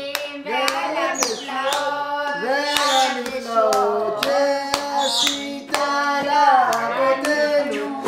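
A group singing a song together while clapping their hands in time, about two claps a second.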